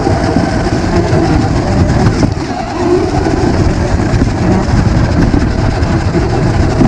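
Electric motor and gears of an RC rock crawler running, with a loud, steady rumble and rattle.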